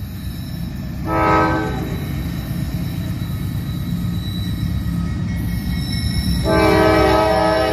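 Diesel freight locomotive's air horn sounding a short blast about a second in, then a long blast starting near the end, over the engine's low rumble that grows louder as the train approaches. It is the short-then-long close of a grade-crossing horn signal.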